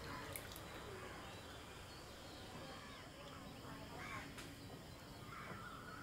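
Faint outdoor ambience with a few soft bird calls, about four seconds in and again near the end.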